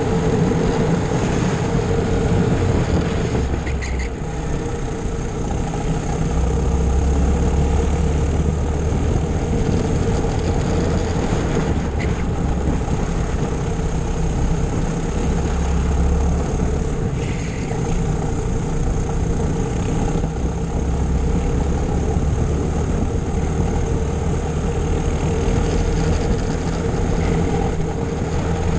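Four-stroke racing kart engine heard onboard, running hard around the track. Its low note swells and eases every few seconds with the throttle.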